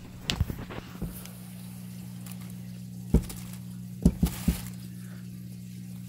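Cat scrabbling about in a fabric cat tunnel: a few soft thumps and rustles, the loudest about three seconds in and a quick cluster about four seconds in, over a steady low hum.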